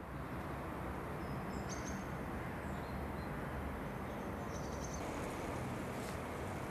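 Steady town street ambience: a low, even rumble of distant traffic with a few short bird chirps about two seconds in and again near the middle.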